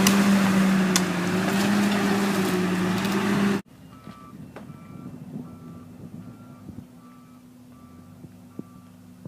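A heavy vehicle's diesel engine runs loud and close, then cuts off abruptly a few seconds in. A backup alarm follows, beeping steadily about every 0.7 s over a fainter engine hum.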